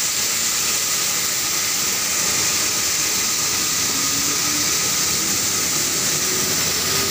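Flour mill plant running: a steady, loud rush of machine and air noise with a strong hiss. A faint whine rises slowly in pitch from about four seconds in.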